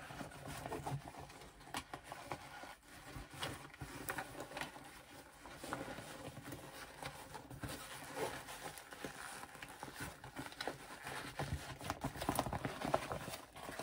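Cork fabric and waterproof canvas rustling and creasing as a bag is worked right side out by hand, with irregular small taps and clicks.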